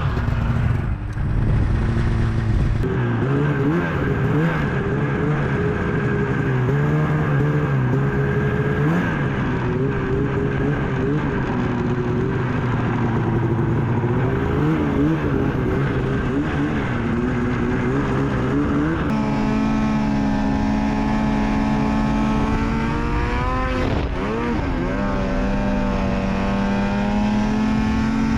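Snowmobile engine running, its pitch rising and falling as the throttle comes on and off. About nineteen seconds in, the sound switches abruptly to a steadier, higher engine note, which dips and climbs again briefly a few seconds later.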